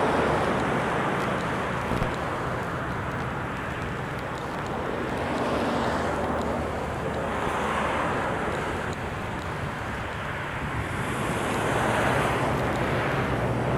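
Wind buffeting the microphone and water rushing on a car ferry under way, swelling and easing every few seconds, over a low steady engine hum.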